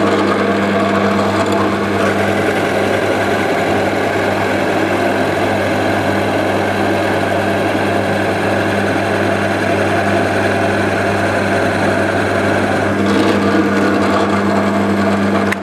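Drill press running steadily as a Famag Forstner bit with carbide inserts bores into hardwood: a constant motor hum with the rough noise of the bit cutting and throwing out large shavings over it. The press is switched off at the very end and begins to spin down.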